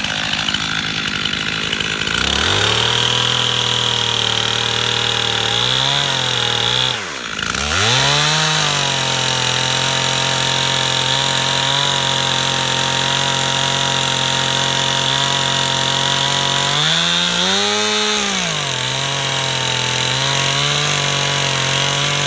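Stihl chainsaw cutting into an oak stump: the engine throttles up about two seconds in and runs steadily under load, its pitch dropping sharply about seven seconds in as the chain bogs in the cut, then recovering. Around eighteen seconds in the pitch rises and falls again before it settles back to a steady cutting note.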